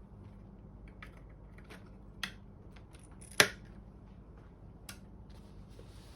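Small plastic and metal clicks and taps from handling a diagnostic cartridge and fitting it into a Commodore 64 board's expansion port. One loud, sharp click comes about halfway through, over a faint steady hum.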